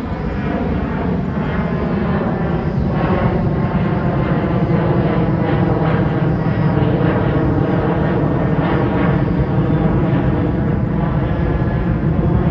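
Twin-engine jet airliner climbing out overhead after takeoff: a steady, loud jet engine roar with a whine of several tones that slowly fall in pitch.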